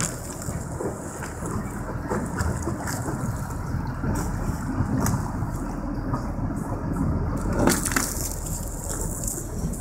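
Thin sea ice cracking and crushing against a scallop boat's hull as the boat breaks through it. It is a continuous crackle of small cracks, with one louder sharp crack about three-quarters of the way through and a steady low rumble underneath.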